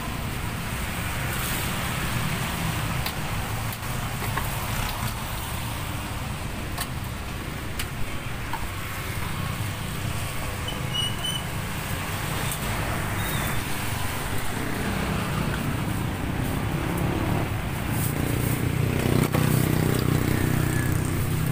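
Steady low rumble of road traffic, growing a little louder about fifteen seconds in.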